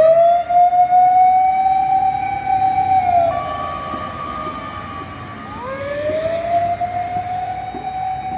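Fire engine siren wailing: the tone rises, holds steady for about three seconds and drops away, then rises and holds again. In the gap between the wails a steady higher tone sounds.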